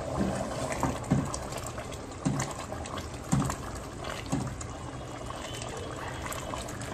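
Thick chickpea curry sloshing as a wooden spatula stirs it around a metal pot, a stroke about once a second, then settling to a steady bubbling simmer.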